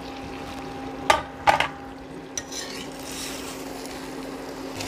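Steel utensils clanking on an iron kadhai, two sharp ringing clanks about a second in, then a steel ladle stirring and scraping through the thick vegetable curry. A steady low hum runs underneath.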